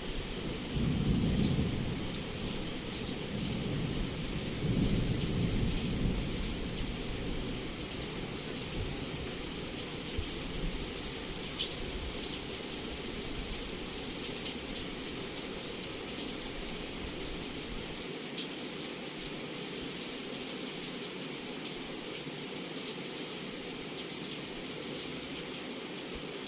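Heavy rain falling steadily, with scattered sharp drop taps. Low thunder rumbles roll twice in the first six seconds.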